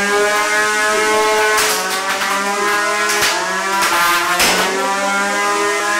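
A combat robot's spinning weapon running at speed with a steady whine, after spinning up at the start of the match, broken by several sharp hits as the robots collide.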